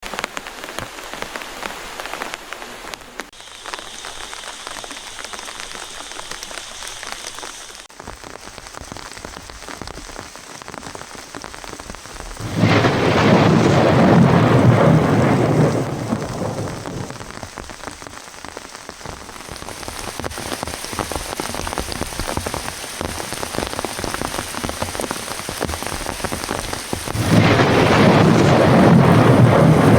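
Heavy rain falling steadily, with two long rolls of thunder, the first about twelve seconds in and the second near the end.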